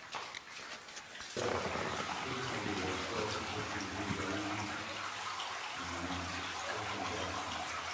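A steady rushing noise, the kind water makes, that starts abruptly about a second and a half in, with faint low tones beneath it.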